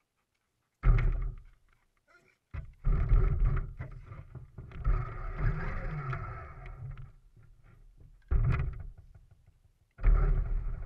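Remote-control car's motor and drivetrain running in four bursts of throttle, heard from a camera mounted on the car: a short burst about a second in, a long run of about four seconds, another short burst, and a fourth starting near the end, with silence between them.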